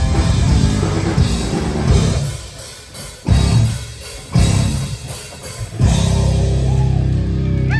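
Loud live heavy rock band, drums and distorted guitars. The full playing breaks off about two seconds in into separate hard-hit accents, then settles into a sustained heavy chord near the end.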